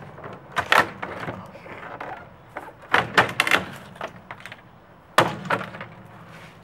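Claw hammer striking the wooden case of an old upright piano, with wood cracking and splintering. The sharp knocks come one at a time, with a quick cluster about three seconds in and one more near the end.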